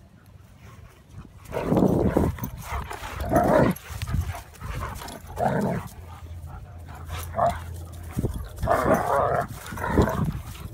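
A German Shepherd and a yellow Labrador growling and barking at each other while they play-fight. The noise comes in about six rough bursts of half a second to a second each, with short gaps between them.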